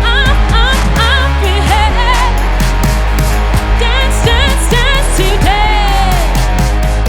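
Live gqom–grunge music: a heavy sub-bass and a steady, fast drum pattern under a wavering high melodic line.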